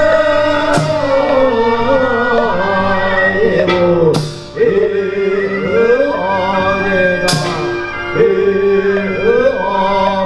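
Korean Buddhist monks chanting into microphones, male voices holding long sliding melodic lines. Brass cymbals crash three times, a few seconds apart.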